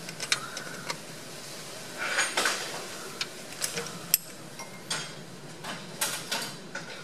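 Socket wrench clicking and clinking on metal while the two mounting bolts of a new oil pump on a Chrysler 318 V8 are tightened down. It comes as scattered sharp clicks with a few short rattles, the busiest stretch about two seconds in.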